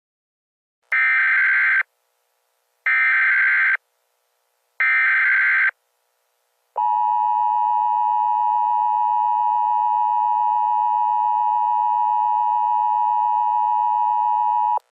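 Emergency Alert System signal: three short bursts of SAME header data tones, each about a second long, then the two-tone EAS attention signal, a steady dual tone held for about eight seconds. This sequence announces the start of a new alert.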